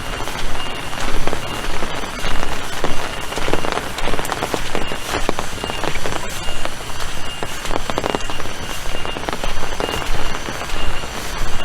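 Heavy rain falling: a steady hiss thick with many sharp drop clicks.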